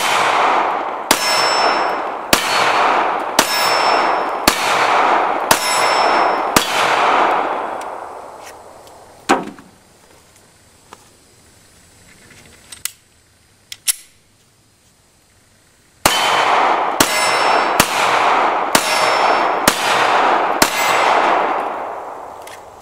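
Glock 43 9mm pistol fired in two strings of shots about a second apart, each shot ringing out with a long echo. There are seven shots, then a pause of several seconds with a few small clicks while the pistol is reloaded, then six more shots at the same pace.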